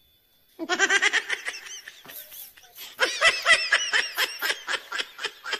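A person laughing hard in quick, rapid pulses: one bout starting about half a second in, and a louder one about three seconds in.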